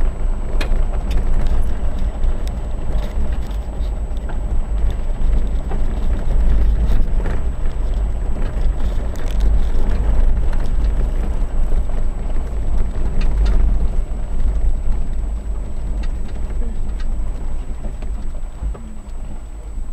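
Vehicle driving slowly on a dirt and gravel road, heard from inside the cab: a steady low road rumble with scattered small clicks and ticks of gravel under the tyres, easing slightly near the end as it slows.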